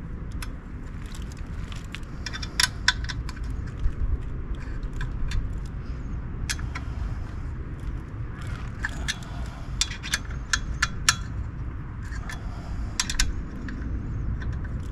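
Irregular sharp metallic clicks and clinks of a hand tool working the bolts on a motorcycle exhaust as they are tightened, over a steady low rumble.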